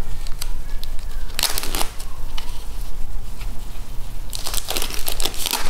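Clear plastic wrapping crinkling as hands handle a freshly unwrapped water-filter cartridge, in two bursts: one about a second and a half in, a longer one near the end. A steady low hum runs underneath.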